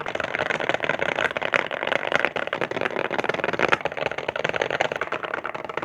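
Rapid typing on a ROG 98HE mechanical keyboard fitted with ceramic keycaps: a dense, steady stream of keystrokes, crisp with a slightly muffled thock, like raindrops falling on stone.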